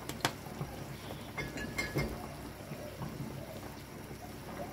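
Soup bubbling at a boil in an aluminium pot on a gas stove. There are two sharp clicks near the start, and a brief ringing metal clink from the ladle against the pot about one and a half seconds in.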